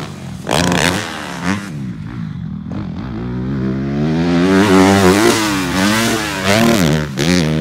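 Dirt bike engine revving: a few short throttle blips, then a long climb in pitch and loudness about halfway through as it accelerates, falling away before more blips near the end.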